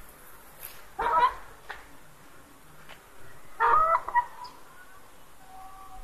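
Brown laying hens calling: two short, loud squawks, one about a second in and a longer one at about three and a half seconds, over faint background clucking.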